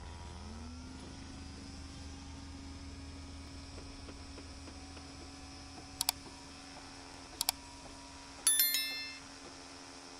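Subscribe-button animation sound effects over a low steady hum: two quick mouse clicks about six seconds in, two more about a second and a half later, then a short ringing bell chime.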